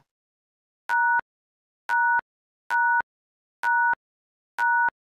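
Quiz countdown timer beeping about once a second: five short beeps, each two steady tones sounding together, with a small click at the start and end of each.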